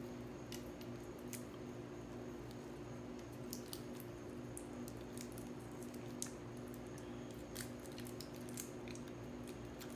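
Scattered light clicks and taps from small cured resin pendants being handled and turned in the fingers, over a steady low hum.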